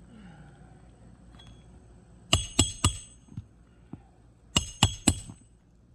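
Roof hatchet driving roofing nails through asphalt shingles: two sets of three sharp, ringing hammer blows, about two seconds apart.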